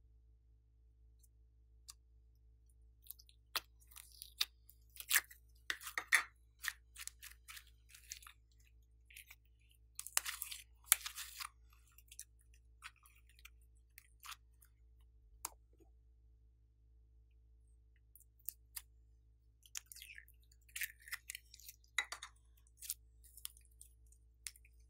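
Slime being squeezed and stretched by hand, giving sticky crackles and small pops in irregular clusters, densest about ten seconds in.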